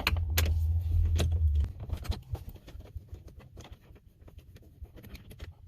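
Light metallic clicks and rattles as the 19 mm steering wheel nut is backed off with a socket wrench, with a dull low rumble of handling in the first second or so.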